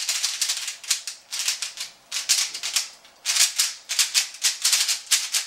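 MoYu Mini Aolong 3x3 speedcube, still unlubricated, being turned quickly by hand: fast runs of plastic clicking and clacking from its turning layers, with short pauses about two and three seconds in.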